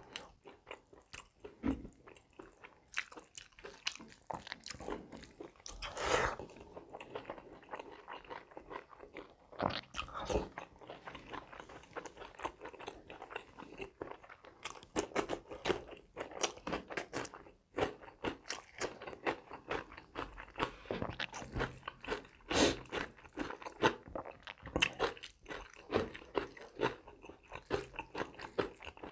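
Close-up chewing and crunching of a mouthful of rice, curry and raw cucumber eaten by hand, with many irregular crisp clicks.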